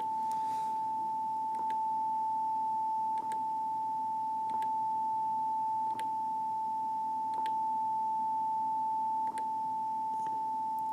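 Yamaha TX802 FM tone generator playing its service-mode output test tone: one steady, pure, high tone, checking that each audio output works. Faint clicks every second or two, each with a slight change in level.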